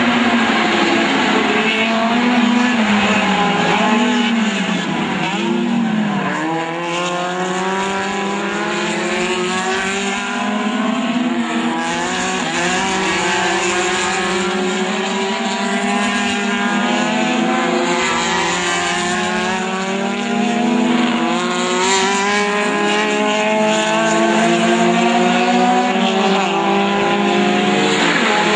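A pack of small four-cylinder touring racing cars, mostly VW Gols, running past at race pace. Several engines rev up through the gears at once, each pitch climbing and dropping back at every shift, overlapping.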